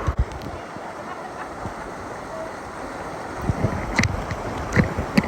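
A jet ski underway: wind rushing over the microphone and water splashing, with a few sharp knocks just after the start and several more in the last two seconds.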